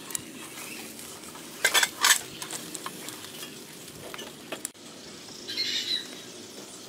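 Fat sizzling on a pig's head roasting on a wire grill over glowing charcoal, with small crackles throughout and two loud sharp cracks about two seconds in. A brief louder burst of hiss comes near the end.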